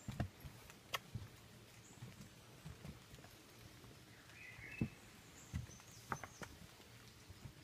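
Footsteps on a wet wooden boardwalk, faint, uneven knocks and thumps as the walker moves along. A brief chirp sounds about four seconds in.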